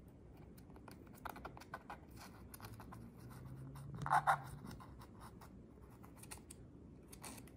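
Faint scratching and light clicking of a blunt-tipped syringe working acrylic latex sealant along the edge of an iPhone's frame, with two sharper clicks about halfway through.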